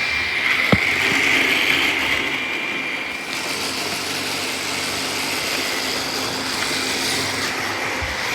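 Robot vacuum cleaners running: a steady mechanical whir of motors and brushes, with a sharp knock just under a second in and another near the end.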